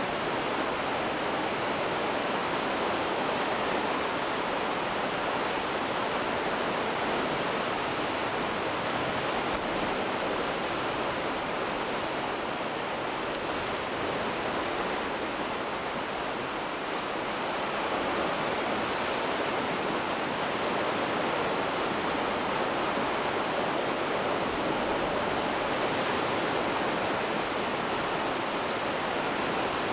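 Steady rushing of sea surf below a sea cliff, an even wash of noise with no breaks.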